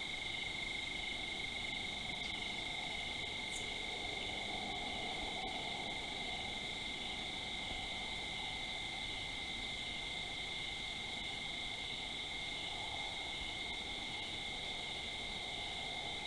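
Night chorus of crickets: a steady, unbroken chirring at two high pitches, with a fainter lower hum beneath.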